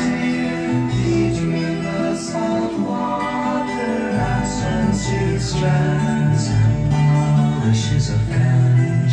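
A vinyl record playing on an Audio Reflex DD-1979 direct-drive turntable: a steady song with guitar and a regular beat.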